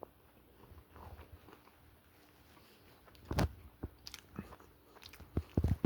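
A person biting into and chewing a slice of cold pizza close to the microphone, with a few sharp, loud bites about three and a half seconds in and again near the end.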